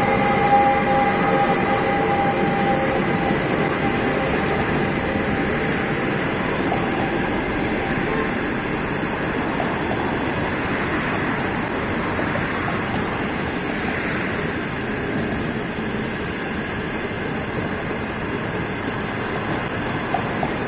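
An HXD3D electric locomotive passes with a steady multi-tone electrical whine that fades over the first few seconds. A train of green passenger coaches then rolls by with steady wheel-on-rail rumble and a few faint clicks, slowly getting quieter.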